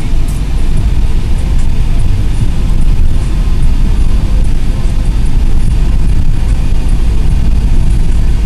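Steady low rumble of a moving car heard from inside the cabin: road and engine noise while driving at speed.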